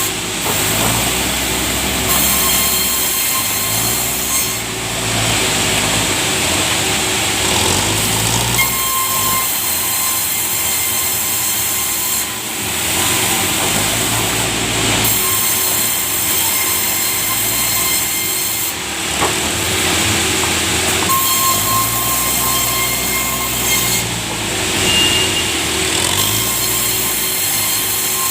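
Sawmill saw cutting through a large teak log with a loud, continuous mechanical cutting noise that swells and eases every few seconds.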